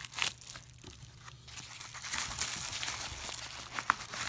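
Yellow padded bubble mailer being torn open and handled: kraft paper tearing and crinkling, with a few sharp crackles near the start, a denser stretch of crinkling in the middle and one sharp snap near the end.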